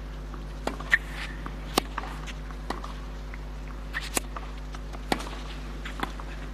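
Tennis rally on a clay court: sharp pops of rackets striking the ball about once a second, with fainter ball bounces and footfalls between them, over a steady low hum.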